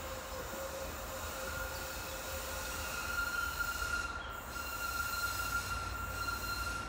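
A Tatra tram's steel wheels squealing against the rails: a steady high squeal that grows stronger about halfway through, over a low running rumble.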